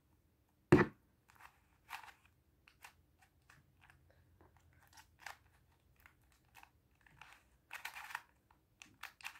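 Plastic 3x3 Rubik's cube being twisted by hand: scattered soft clicks of the layers turning, with a brief quick run of clicks near the end. A short vocal sound from the boy comes just under a second in.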